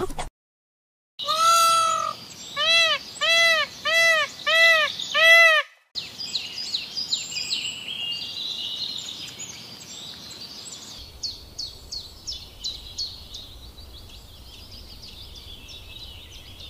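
A bird gives a run of about six loud, ringing calls that each rise and fall in pitch. After them comes a stretch of quicker, high bird chirps and short falling notes.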